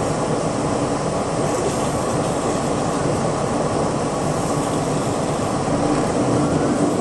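City bus running, a steady rumble of engine and road noise heard from inside the passenger cabin.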